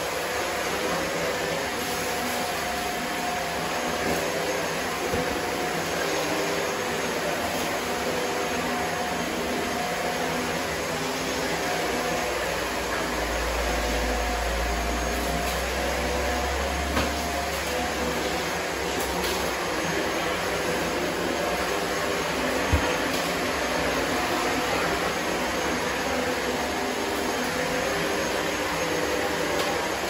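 Shark upright vacuum cleaner running steadily as it is pushed over a hard laminate floor, its motor a constant whine over rushing air. A few sharp clicks come through as crumbs are sucked up, and there is a low rumble for a few seconds in the middle.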